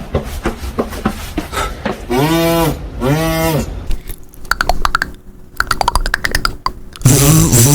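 Beatboxer's mouth-made imitations of everyday sounds: a run of quick clicks, then two long humming tones that rise and fall in pitch, more clicking, and a loud buzzy tone near the end.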